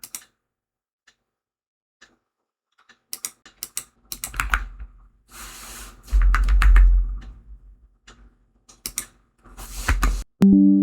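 Computer keyboard typing and clicking in scattered runs, with a couple of dull low thumps. A pitched musical note comes in near the end.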